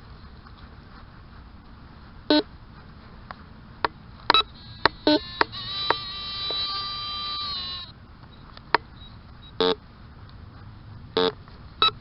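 Metal detector giving target tones: several short beeps at differing pitches and, about halfway through, one steady tone held for about two seconds. Faint ticks and clicks come from a hand digger working loose soil.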